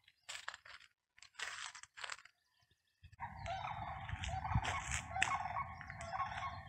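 Footsteps crunching on a dirt and leaf-litter trail, a few short steps in the first half. From about halfway on, a steady low rumble with birds chirping.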